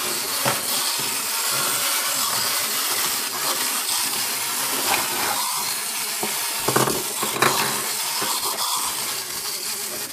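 Clockwork motors of wind-up Pac-Man and ghost toys whirring steadily as the toys run on a tabletop, with a few knocks of plastic figures being moved near the start and around the middle.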